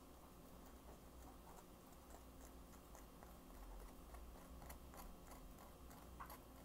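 Near silence, with faint scattered clicks and crackles from a thin clear plastic candy mold being handled. The clicks come more often and a little louder in the second half.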